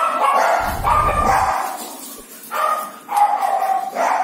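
A dog barking loudly: one long drawn-out call at the start, then three shorter calls in the second half.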